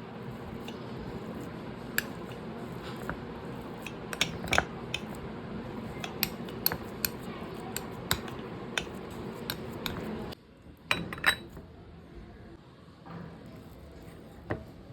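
Metal utensils clinking against cookware: many sharp, separate clinks over a steady hiss that cuts off about ten seconds in, then a few more clinks.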